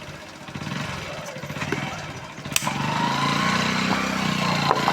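A small engine running steadily, growing louder about halfway through, with a few sharp metallic clicks.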